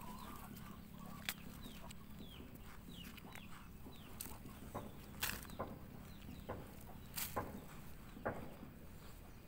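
Faint bird calls: many short falling chirps scattered throughout, with a few sharp clicks.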